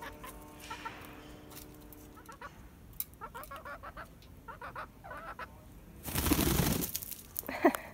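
A hen clucking softly in short calls, then a loud flurry of wing flaps about six seconds in as she flies down from the coop roof, followed by a couple of louder clucks.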